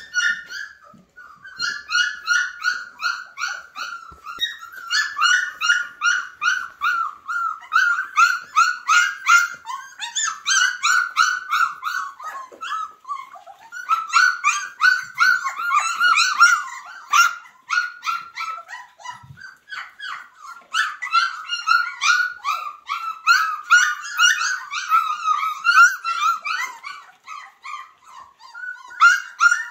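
Young flat-coated retriever puppies, about three and a half weeks old, whining and yipping in rapid strings of short, high-pitched cries, several a second, with only brief lulls.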